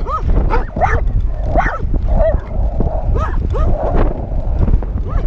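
Dogs barking: many short high calls that rise and fall, a few each second, over a steady low rumble.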